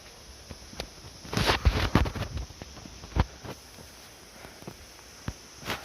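Footsteps climbing damp steps: irregular scuffs and knocks, with a busy cluster of steps about a second and a half in and single heavier knocks later.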